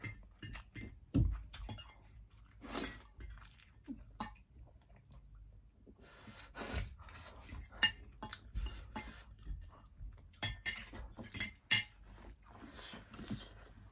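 Metal forks clinking and scraping on ceramic plates in a string of short, irregular clicks, with chewing between them.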